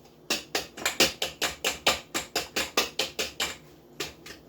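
A utensil tapping rapidly against a bowl, about five strikes a second, while breaking up flaked canned salmon, with a short pause near the end.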